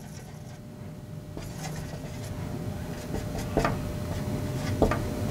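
A Sharpie marker being drawn across a car engine cover as a signature is written: faint, scratchy rubbing with a few small clicks.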